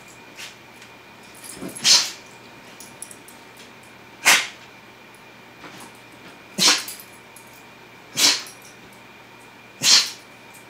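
Huskies play-fighting, giving five short, sharp breathy puffs of air through the nose, roughly every two seconds.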